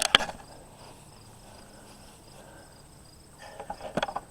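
Insects, crickets, chirping steadily in the background. There is a sharp knock at the very start and a short cluster of clicks and knocks near the end.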